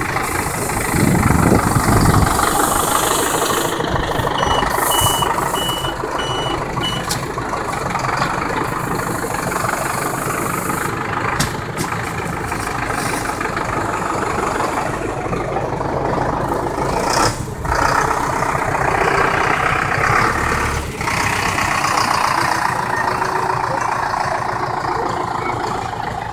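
Zetor tractor engine running while its front loader works round bales, louder for a moment about a second in. A run of short high beeps sounds about four to seven seconds in.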